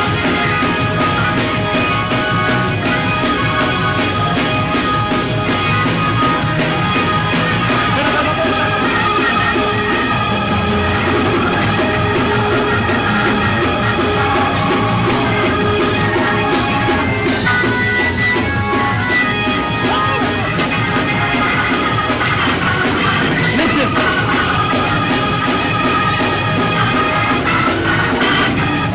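Loud gospel praise-break music from a church band, with long held tones, and people yelling and singing over it.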